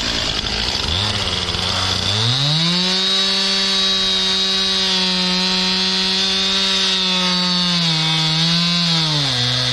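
Stihl MS 261 C two-stroke chainsaw cutting sugar maple. Its engine is pulled down low at the start, climbs to a high steady speed about two seconds in, and sags twice near the end as the chain bites into the wood.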